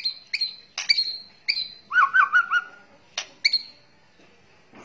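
White-rumped shama (murai batu) giving its 'kretekan' calls: a string of short, sharp, high chips, with a brief wavering warbled phrase about two seconds in.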